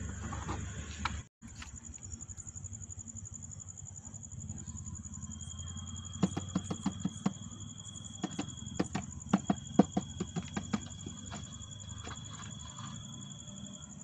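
Crickets trilling steadily, with a second, lower insect trill joining about five seconds in. Between about six and eleven seconds in comes a run of sharp taps and knocks, the loudest sounds: a clear plastic jar being handled and knocked on the ground to tip out a baby cobra.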